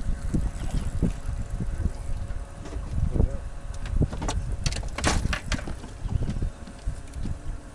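Wind rumbling on the microphone on an open boat deck, with a quick run of sharp noises about four to five and a half seconds in.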